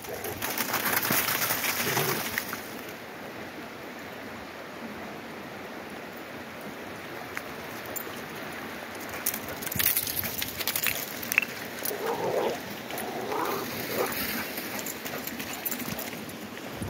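Steady rush of a creek, with dogs running about on the gravel and ice. About twelve seconds in, a few short dog barks.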